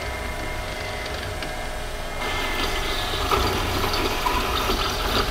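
Machine spindle running with a steady hum as its drill bit cuts into a metal tube; about two seconds in the cutting grows louder and rougher.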